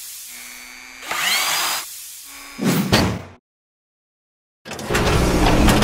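Mechanical sound effects of the channel's robot-themed logo animation. First come two short whirring, drill-like bursts, each opening with a brief rising whine, then a shorter burst. After about a second of silence, a longer grinding clatter begins.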